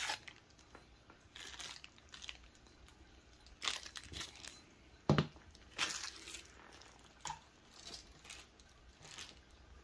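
Clear plastic bag crinkling as it is worked off a paintball marker barrel, in short scattered bursts. Two sharp knocks in the second half as parts are set down on a cutting mat.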